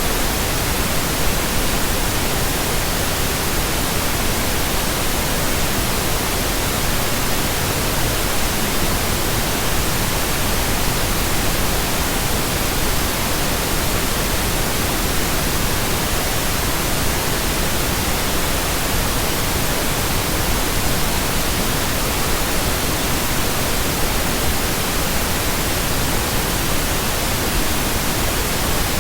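Steady pink noise: an even, unbroken hiss with no tones, clicks or changes.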